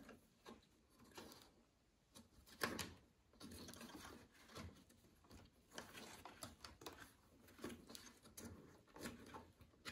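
Faint plastic clicks and scrapes of a top-load washer's water-level pressure sensor being handled and pushed into its plastic mount, with one louder click about two and a half seconds in.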